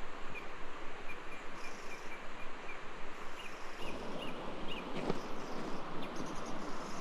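Outdoor rural ambience with a small bird calling: a run of short, evenly repeated chirps for about three seconds, then a few quick upward-sweeping chirps. One sharp click about five seconds in.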